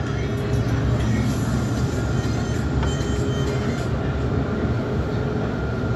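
Dubai Tram, an Alstom Citadis, running along its track, heard from inside the car: a steady low rumble.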